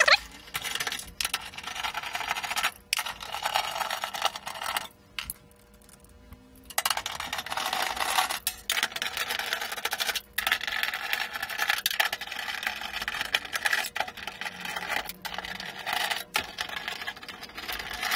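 Screws being turned out of a metal chassis plate with a hand screwdriver: repeated stretches of metal-on-metal scraping and creaking, broken by short pauses. There is a sharp knock right at the start.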